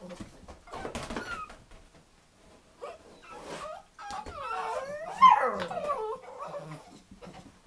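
Nine-week-old puppies whining and yelping, with a cluster of high, wavering cries about four to six seconds in.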